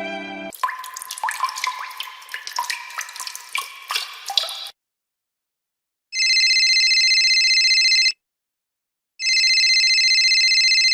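A run of quick water drips and plops for about four seconds, then, after a pause, a telephone ringing twice, each ring about two seconds long.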